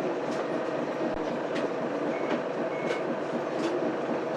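Mitsubishi Fuso Aerostar bus's 6M70 six-cylinder diesel idling steadily while the bus stands at a stop, heard from inside the cabin. There are two short faint beeps partway through.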